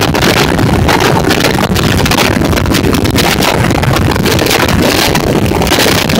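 Loud rush of wind and rolling rail noise from a train travelling at speed, heard through an open carriage window, with gusts buffeting the microphone.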